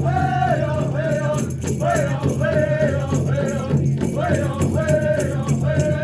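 Hoop dance song: a singer's voice in repeated wavering phrases over a steady drum, with an evenly repeating rattle.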